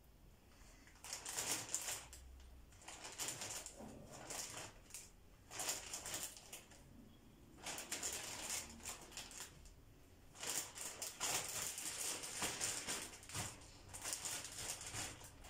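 Clear plastic bag crinkling and rustling in irregular bursts as peeled orange segments are put into it and the bag is handled.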